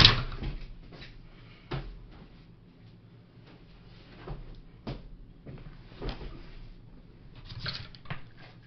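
Phone box packaging being handled: scattered taps, clicks and rustles of cardboard and paper, with a sharp knock at the start.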